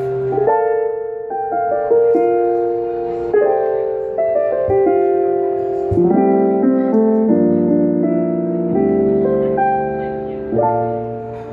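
Keyboard playing a slow instrumental passage of sustained chords that change every second or so.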